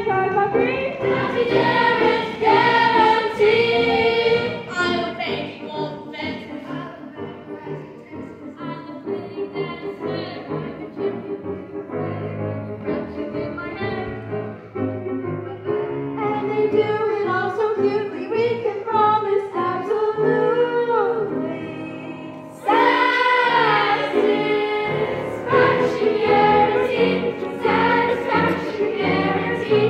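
A chorus of young voices singing a musical-theatre number with instrumental accompaniment. About 23 seconds in, the singing suddenly gets louder, with high held notes.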